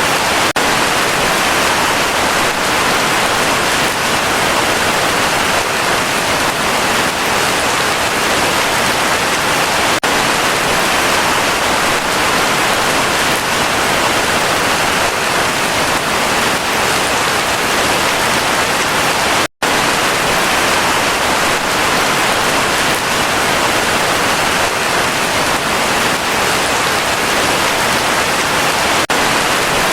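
Heavy rain falling steadily, a dense, even hiss of drops, broken once by a split-second dropout about two-thirds of the way through.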